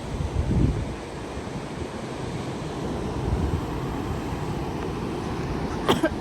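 Steady rushing outdoor noise with low gusts of wind buffeting the microphone, about half a second and three seconds in, and a short sharp click near the end.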